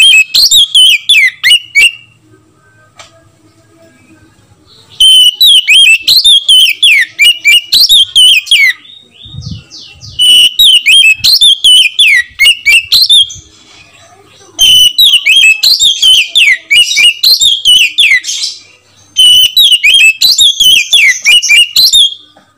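Oriental magpie-robin singing loudly in five bouts of a few seconds each, with short pauses between. Each bout is a fast run of sweeping whistled notes.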